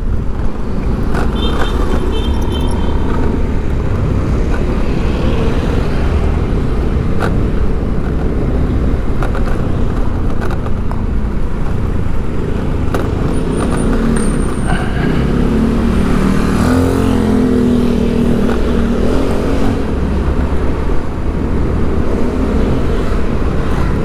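Steady city road traffic: a continuous low rumble of vehicle engines and tyres, with one engine sounding louder and closer about two-thirds of the way through.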